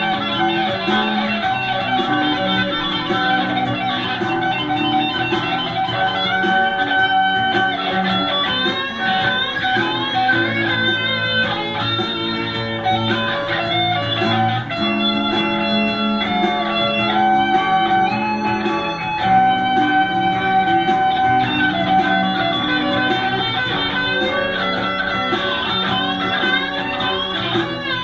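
Music led by an electric guitar, playing fast runs of notes with some bent, wavering notes over fuller chords.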